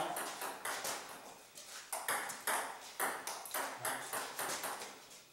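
Table tennis rally: a run of sharp clicks as the ball strikes the rubber-faced paddles and bounces on the table, roughly two a second, each with a short ring in the room.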